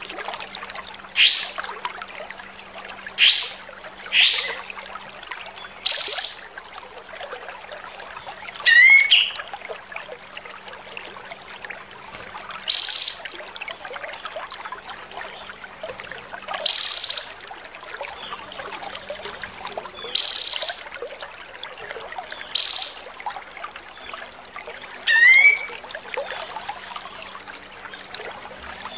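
Kapas tembak (olive-winged bulbul) singing: loud, harsh upward-sweeping calls repeated every two to four seconds, two of them ending in a quick rising trill, over a steady background hiss.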